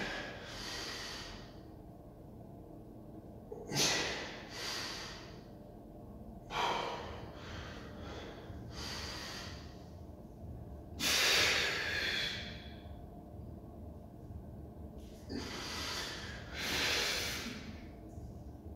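A man breathing hard while flexing through bodybuilding poses, with forceful breaths blown out in bursts about every two seconds.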